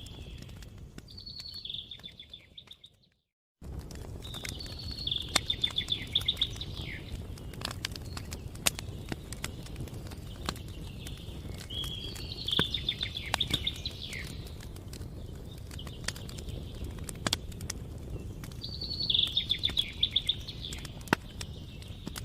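Campfire crackling with scattered sharp pops over a steady low rumble, while a songbird sings a short trilled phrase four times. The sound cuts out completely for about half a second near the start.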